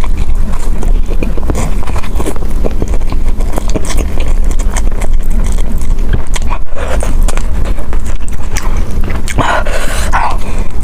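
Close-miked eating: chewing with dense, rapid wet smacks and clicks of the mouth, and a short louder noisy burst near the end.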